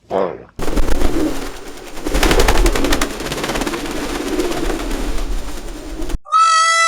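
Pigeons cooing over a dense clatter of wing flaps and scuffling with many sharp clicks. A loud, clear honking call starts near the end.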